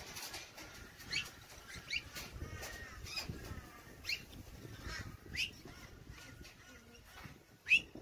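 Birds calling: a handful of short, sharp chirps that sweep in pitch, the loudest near the end.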